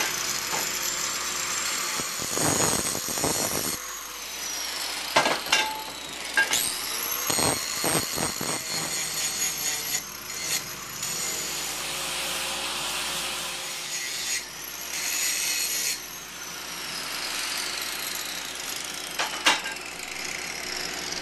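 Angle grinder with a grinding wheel cleaning up the cut ends of metal tubes, taking the burrs off. It is switched on several times: its whine rises as it spins up and falls slowly as the wheel coasts down between passes, with a rough grinding noise as the wheel bites the metal.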